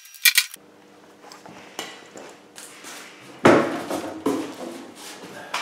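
Workshop handling noises as tools and a template sheet are moved about: two sharp clicks near the start, scattered light knocks and rustles, and a louder clatter about three and a half seconds in, over a faint steady hum.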